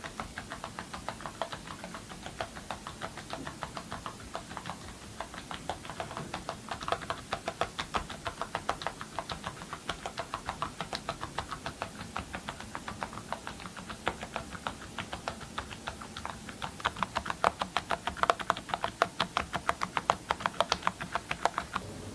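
Mechanical keyboard with Awekeys Lunar Maria metal keycaps being typed on steadily: quick runs of key clacks, several a second, getting louder in the last few seconds.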